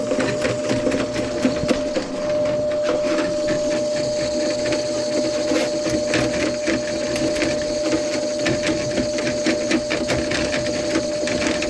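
Motor-driven drain-cleaning machine running with its cable spinning in the clogged kitchen drain line. It gives a steady motor whine over a fast, continuous rattling clatter.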